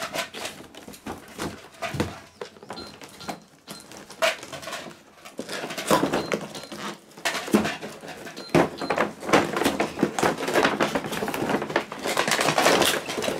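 Large cardboard toy box with clear plastic windows being handled and opened: repeated knocks, scrapes and crinkling of cardboard and plastic, busier and denser in the second half.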